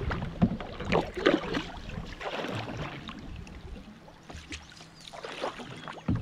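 Wooden otter-tail canoe paddle dipping and pulling through calm water in a few strokes: irregular splashes, swirls and drips off the blade, the splashes strongest in the first second and a half.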